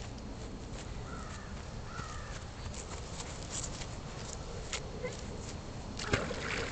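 Outdoor background with a steady low rumble, and a bird calling faintly twice, short calls about one and two seconds in. A brief burst of noise comes near the end.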